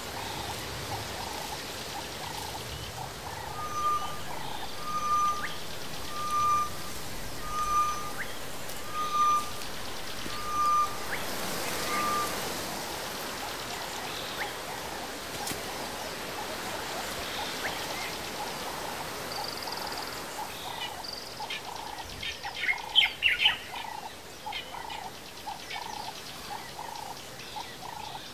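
Wildlife ambience: a steady chorus of low, pulsing animal calls, with a bird repeating one clear note seven times, about once a second, through the first half. A few short chirps and clicks come near the end.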